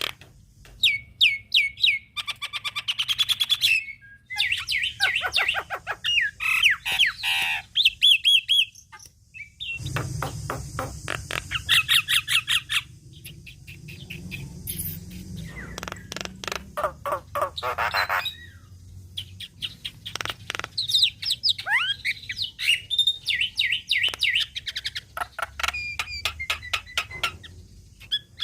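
Javan myna singing a long, varied song: rapid runs of clicks, harsh chattering squawks and short whistled notes that bend up and down, in vigorous bouts with brief pauses between them.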